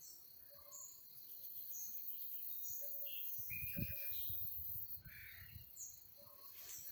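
Birds calling in the background: scattered short calls and chirps at several different pitches, with a low rumble about halfway through.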